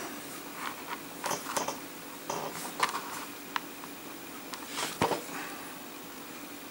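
Soft handling noises of small plastic miniature figures being moved and set down on a cutting mat by fingers: a few scattered light taps and clicks with faint rustling between them, over a faint steady hum.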